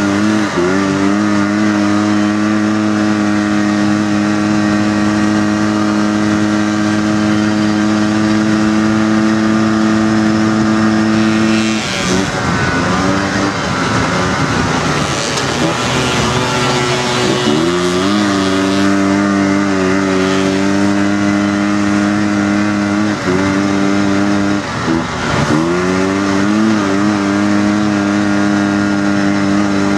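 Single-cylinder four-stroke engine of an off-road buggy pulling hard. It climbs in revs at the start and holds a steady high pitch, then drops off the throttle about twelve seconds in. It revs back up a few seconds later and holds, with two brief lifts near the end.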